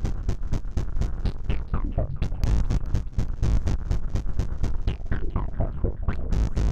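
Noise Toaster analog noise synthesizer processed through a 1010music Lemondrop granular synthesizer: a fast, irregular stutter of clicks over a heavy bass drone, with short chirps that glide down in pitch.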